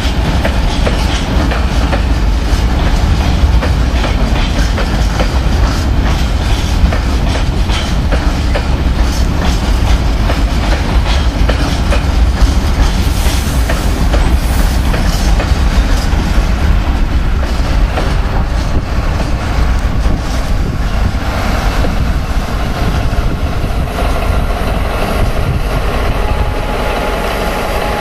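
Hopper wagons of a freight train rolling past, their wheels clacking steadily over the rail joints. Near the end, a diesel locomotive's engine becomes audible under the wheel noise.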